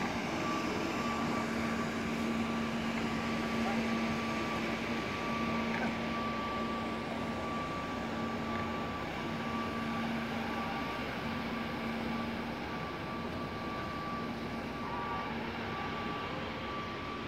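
Nilfisk combination scrubber-dryer's motors running: a steady drone with a low hum and a higher steady whine over it.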